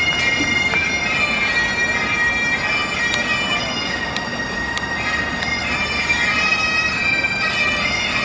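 Instrumental music of long held, reedy notes over a steady drone, with a bagpipe-like sound; the notes change every second or two.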